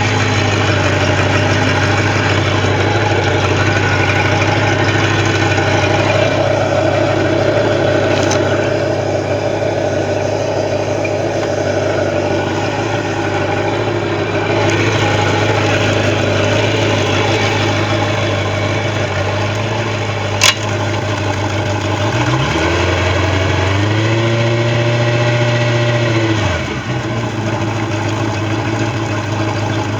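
Bayliner boat engine idling steadily, then revved up for a few seconds about three-quarters of the way through and let fall back to idle. A single sharp click comes just before the rev.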